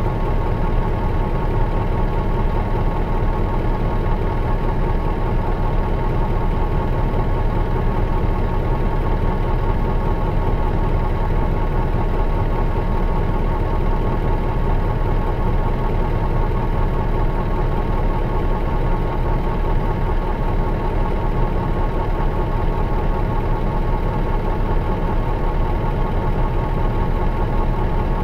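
Mitsubishi Fuso Aero Bus KL-MS86MP coach's V8 diesel engine idling steadily, with a thin steady high tone above it.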